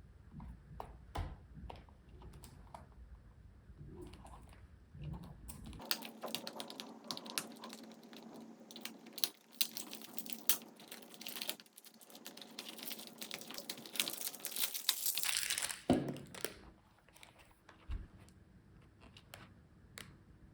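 Small toy-car packaging being opened by hand: a few scattered clicks, then from about six seconds in a long stretch of dense crinkling and tearing of plastic and cardboard, which stops suddenly, followed by a few more clicks.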